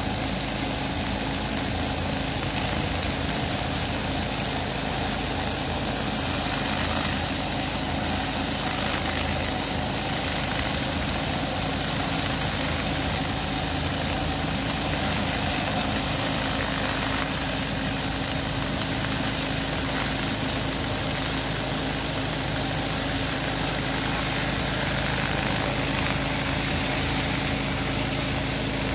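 Honda petrol engine of a Landa PGDC 4-3000 pressure washer running steadily, with a constant high hiss of the water spray over it.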